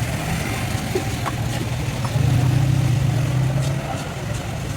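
A steady low engine hum, louder for a second or so about two seconds in, with a few faint clicks.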